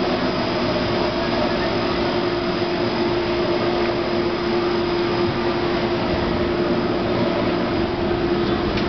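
Watermelon sorter conveyor running: a steady mechanical hum from its motors and rollers, with one held tone over the din.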